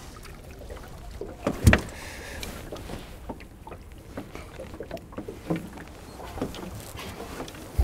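Scattered knocks and clicks of a small pike being handled in a landing net and unhooked in a boat, with one loud thump a little under two seconds in.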